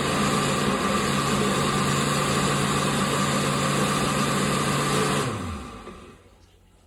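Electric blender motor running at a steady speed, then switched off about five seconds in and spinning down with a falling pitch.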